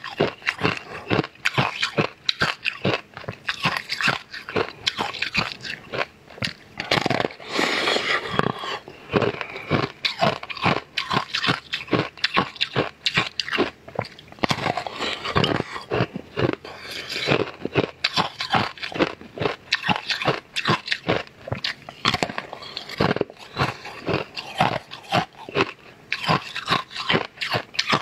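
Close-miked eating of a clear sweet ice cake: a dense, continuous run of crunching, biting and wet mouth sounds.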